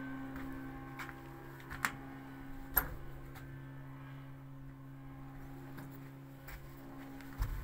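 A steady low hum, with a few scattered sharp clicks or knocks, the loudest nearly three seconds in.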